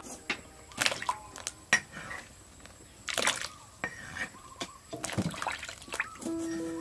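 Water splashing in a steel basin as pieces of cut gourd are dropped in one after another and then swished by hand. A series of separate splashes, with a longer swishing splash about five seconds in. Background music comes in near the end.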